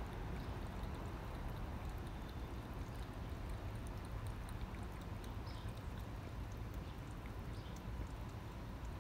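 A cat lapping and eating soggy food from a bowl, small irregular clicks over a steady low rumble.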